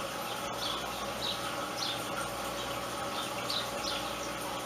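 Small bird chirping repeatedly in the background, short high notes that sweep downward, roughly one or two a second, over a steady low hum.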